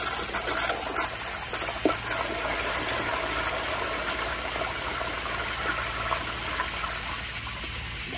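1992 Kohler Kingston siphon-jet toilet flushing on a flushometer: water swirling and draining down the bowl with a steady rush and a few small pops.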